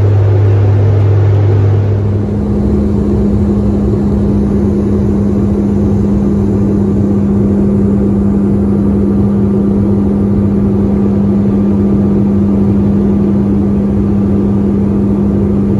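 Steady jet-airliner cabin noise in flight: engine hum and rushing airflow heard from a seat inside a regional jet. A low hum gives way to a higher steady hum about two seconds in.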